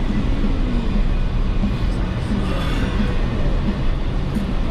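Jeep Wrangler driving off-road, a steady low rumble of engine and drivetrain.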